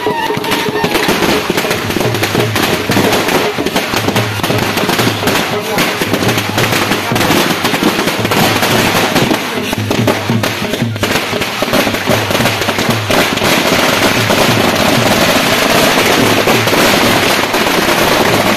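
A string of firecrackers going off on the ground in a rapid, continuous crackle of small bangs.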